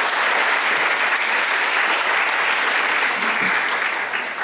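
Crowd applauding steadily, then dying away near the end.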